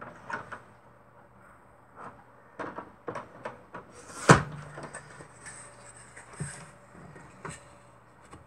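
Foam core and mat board being handled on a work table: scattered light taps and clicks, with one sharper knock about four seconds in.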